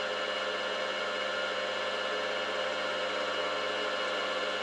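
Milling machine running steadily with the edge finder turning in its spindle: an even mechanical whir with several constant tones from the motor and drive.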